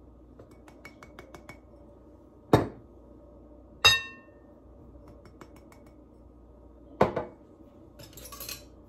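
A drinking glass knocks against a glass mixing bowl as flour is tipped out of it: three sharp knocks, the middle one ringing briefly like struck glass. There are faint light taps early on, and near the end a light rattle of metal utensils.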